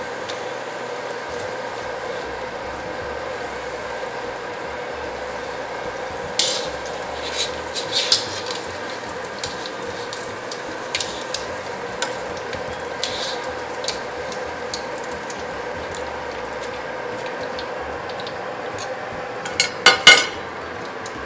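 Shiitake mushroom strips deep-frying in a wok of hot oil, a steady sizzle as their water is fried out to make them crisp. Chopsticks and a wire-mesh strainer clink against the wok now and then, with the loudest metal clanks near the end.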